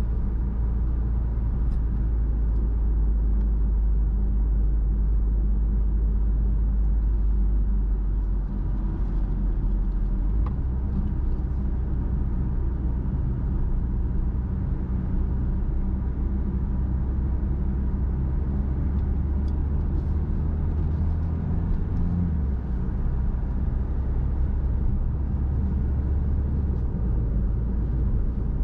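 Car driving along the road: a steady low engine drone with road noise, whose pitch shifts a few times as the engine speed changes.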